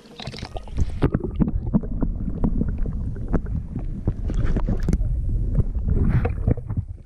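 Pond water sloshing and splashing around a camera held at and under the surface, with a steady low rumble and many irregular knocks and bumps from handling.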